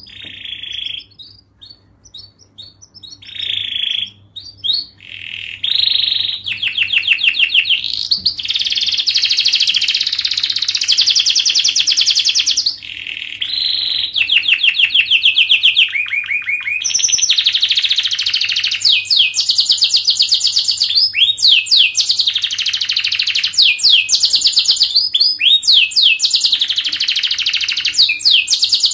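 Domestic canary singing a long, fast song of tightly packed trills, switching to a new trill every few seconds; in the last third it repeats sweeping, falling notes a couple of times a second.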